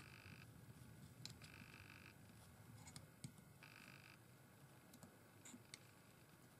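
Near silence: a few faint clicks of small plastic parts being handled, with three brief faint buzzing tones about two seconds apart.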